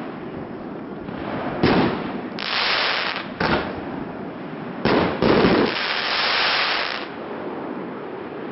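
Aerial fireworks going off: four sharp shell bursts spaced about one to two seconds apart, with two longer stretches of dense hissing crackle between and after them.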